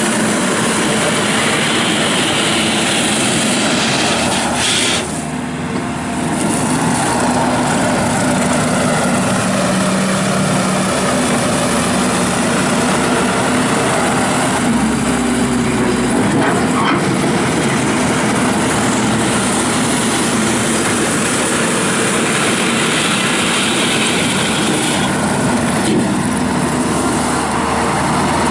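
Diesel engine of a JCB 260T rubber-track skid steer loader running steadily, easing off briefly about five seconds in.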